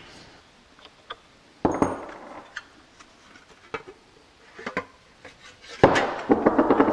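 Handling noise of a plastic flanging die and a freshly flanged aluminium aircraft rib: clicks and knocks as the wrench and bolt come off, a short burst of rubbing about two seconds in, and a louder, longer stretch of sheet-aluminium rattle and scraping near the end as the die halves are pulled out of the rib's hole.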